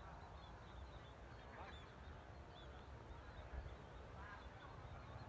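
Faint outdoor background: a steady low rumble with many faint, high, short chirps and a couple of faint distant calls.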